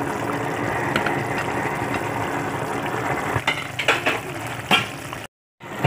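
Broth of sardine tinola with chayote boiling in a pot, a steady bubbling hiss, with a few sharp clicks of a utensil against the pot in the last couple of seconds. The sound cuts out briefly near the end.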